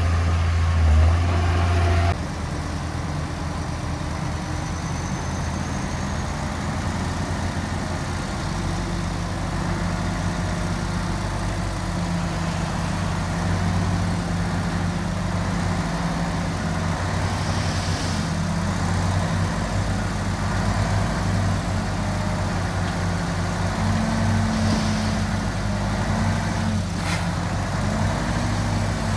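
Diesel engine of heavy earthmoving machinery running steadily, its pitch shifting a little now and then. About two seconds in the sound changes abruptly.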